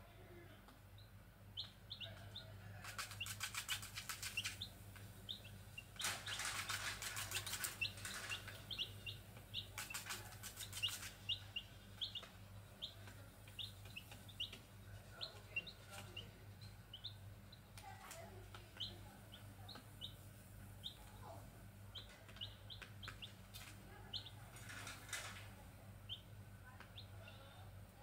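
Grey junglefowl chicks peeping: many short, high peeps, several a second at times, scattered throughout. A few brief rustling bursts break in, the loudest about six to eight seconds in.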